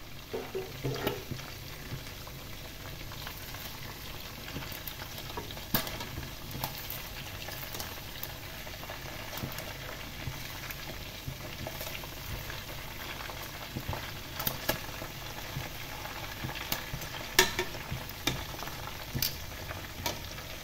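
Quails deep-frying in hot oil in a pan: a steady sizzle with scattered sharp pops, while metal tongs turn the birds in the oil.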